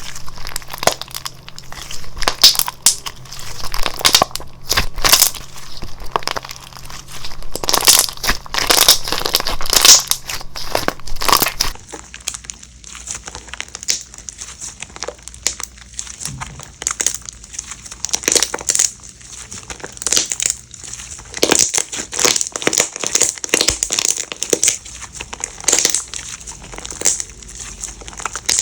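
Slime being squished and worked by hand, with dense, irregular crackling and crinkling. The sound drops to a softer, duller crackle about twelve seconds in.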